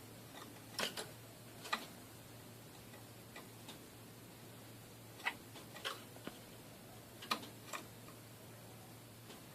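Iraqi bulbul (white-eared bulbul) giving short, sharp call notes, often in quick pairs, spaced irregularly a second or more apart, over a faint steady low hum.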